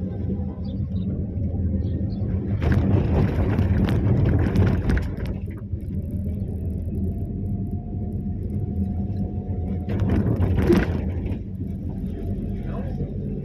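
Vehicle engine idling with a steady low hum. There are two louder rushing passages, about three seconds long starting a few seconds in and about a second long around ten seconds in.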